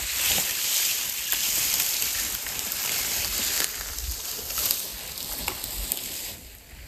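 Strong wind gusting through the forest: a broad hiss that eases after about three and a half seconds and falls away further near the end, with scattered small clicks and a low rumble of wind on the microphone.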